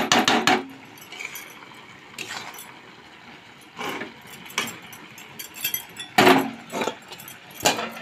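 Metal spatula clinking and scraping against a steel kadai while a vegetable curry is stirred, in short clusters of strikes every second or two.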